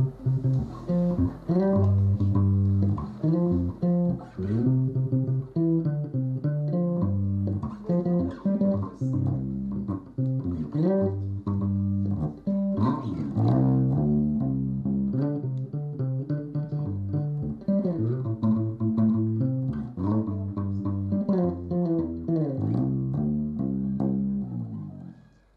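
Four-string electric bass guitar played fingerstyle: a continuous run of plucked notes and riffs, fading out near the end.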